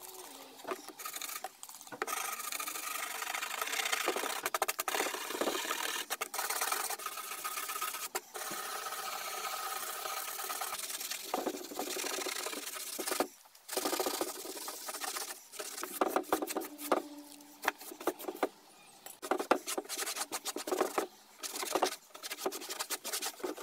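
Scraping and rubbing on an old trunk's creosote-painted canvas panel. A hand scraper scratches a paper label off steadily for several seconds, then there are shorter, irregular rubbing strokes as a cloth scrubs the panel and a towel wipes it dry.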